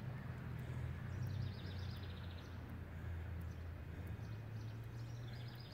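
Quiet outdoor ambience: a low steady hum with faint bird chirps, loudest about a second in.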